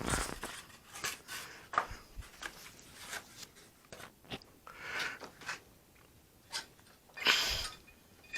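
Hands working with balsa stabilizer parts and masking tape on a workbench: scattered light clicks, crinkles and rustles, with a longer rustle near the end.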